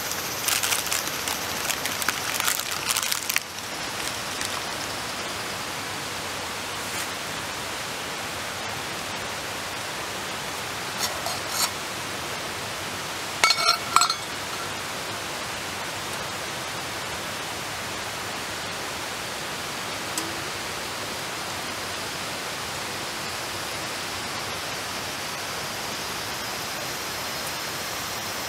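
Steady rushing hiss, with small metal clicks and scrapes in the first few seconds as a knife and spoon work over a metal bowl. A couple of short ringing metal clinks follow, the louder one about fourteen seconds in, as a tin lid by the fire is handled.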